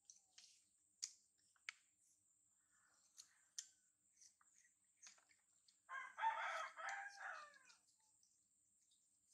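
A rooster crowing once, about six seconds in: a single drawn-out call in two parts that falls away at the end.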